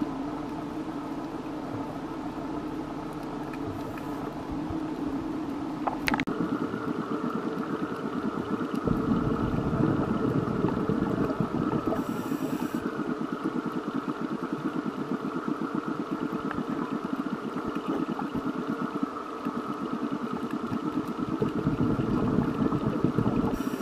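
Steady drone of a boat engine heard underwater, a low hum with a rapid pulsing beat, with one sharp click about six seconds in.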